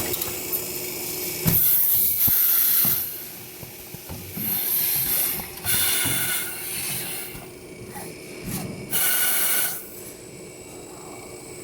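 Automatic copper tube end forming machine cycling: four loud, high-pitched hisses of about a second each, with clicks and knocks of its mechanism in between.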